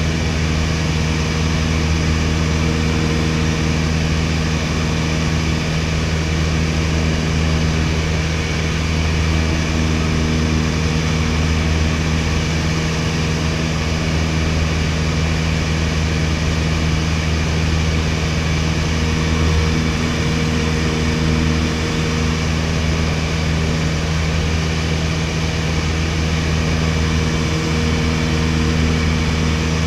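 1961 Piper PA-22-108 Colt's four-cylinder Lycoming O-235 engine and propeller running steadily in level flight, heard inside the cabin.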